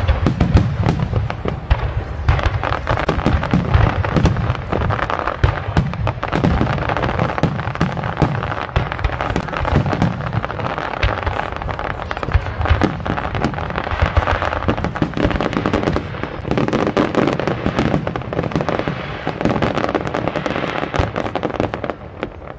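Aerial firework shells bursting overhead in quick succession: a dense, unbroken run of booms and bangs.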